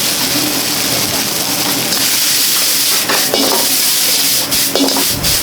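Fried rice sizzling in a wok as it is stir-fried, a steady loud hiss with a few sharp knocks of utensils.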